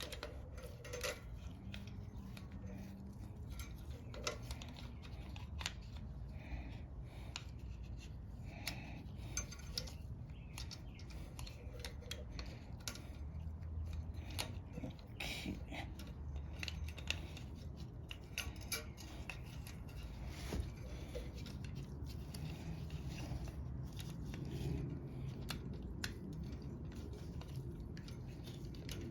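Scattered small metallic clicks, clinks and light rattles of hand tools and small engine parts being handled during reassembly of a lawn mower's carburetor and air box.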